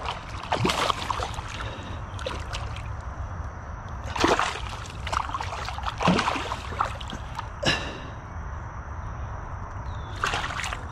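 Hooked bass thrashing at the water's surface as it is landed by hand, giving irregular splashes a second or two apart.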